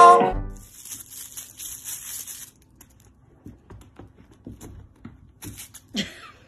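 A cat batting and pouncing on a crinkly foil crinkle-ball toy: rustling crinkles for the first couple of seconds and again briefly near the end, with faint soft taps in between.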